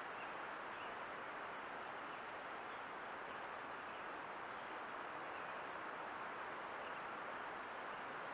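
Steady hiss from a Browning trail camera's built-in microphone, with a thin high electronic whine running through it.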